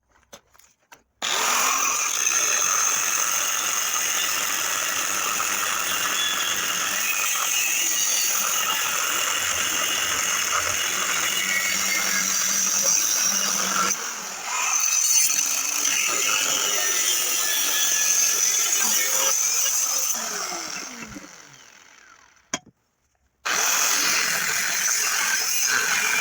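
Angle grinder cutting through the steel flange plate of a wheel hub: a steady, high whine with grinding noise. It dips briefly about halfway, winds down a little after two-thirds of the way through, falls silent for a moment, then starts cutting again near the end.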